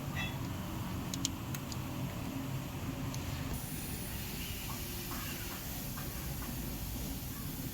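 Steady low background hum with a few brief, light clicks a little over a second in.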